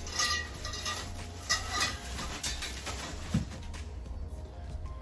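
Metal clothing-rack parts knocking and clinking together during assembly, with short ringing tones at a fixed pitch, twice in the first two seconds, and a dull thump about three and a half seconds in.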